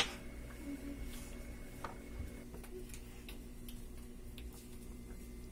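Kitchen knife chopping carrots on a wooden cutting board: faint, irregularly spaced taps of the blade against the board, with one louder click right at the start.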